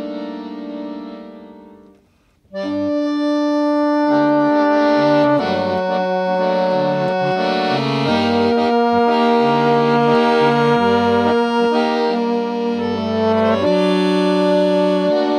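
A Fisart chromatic button accordion and a flugabone playing together. An accordion chord fades away over the first two seconds and there is a brief silence. About two and a half seconds in both come back in loudly, a held flugabone melody over sustained accordion chords and a moving bass line.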